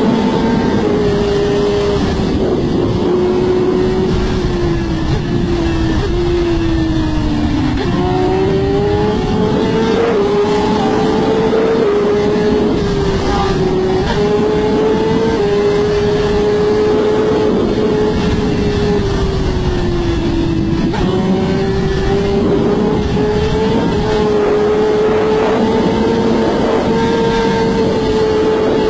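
Sport motorcycle engine running at high revs at speed, with a constant rush of wind. The engine note sags slowly, jumps up sharply about eight seconds in, then rises and falls in smaller steps.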